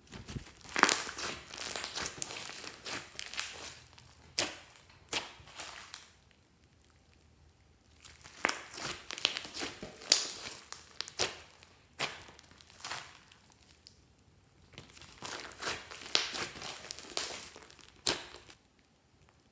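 Orange slime being worked by hand, crackling and popping as it is squeezed and stretched. The crackling comes in bursts of one to three seconds with short pauses, and there are a few single sharp pops.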